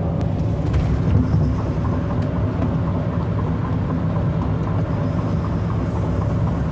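V8 car cruising at steady speed, its engine and exhaust making a steady low drone with road noise, heard from inside the cabin; the muffler has been cut off.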